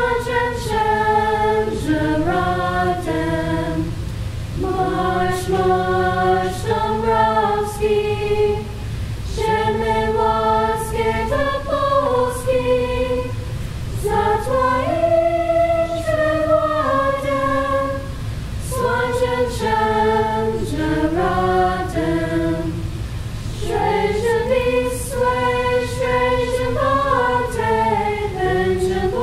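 A mixed high-school a cappella choir singing a national anthem unaccompanied, in parts, with slow, held chords in phrases separated by short breaths.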